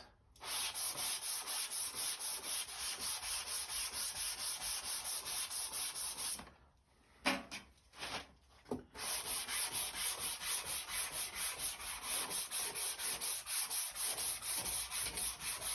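Sandpaper on a hand sanding block rubbed back and forth over primer on a car body in quick, even strokes, cutting down orange peel. About halfway the strokes stop for a couple of seconds, with a few single scrapes, then pick up again.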